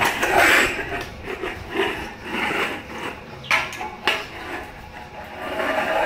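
Stainless steel dog bowl pushed across a concrete floor by a pug's face, scraping and rattling, with two sharp clanks about half a second apart roughly halfway through.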